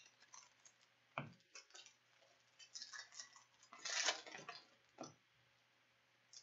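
Soft, scattered clicks and rustles of a stack of trading cards being handled and flipped through by hand, with a fuller rustle about four seconds in.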